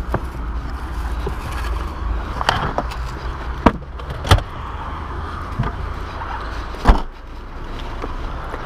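Knocks and thumps as a police car's boot is handled and red-and-white traffic cones are taken out: two loud knocks close together near the middle and a third about two and a half seconds later, with smaller clicks, over a steady low rumble.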